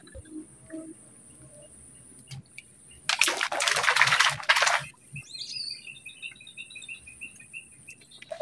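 Water splashing at the surface near the fishing rod tip for nearly two seconds, followed by a bird calling a quick run of short, repeated chirps.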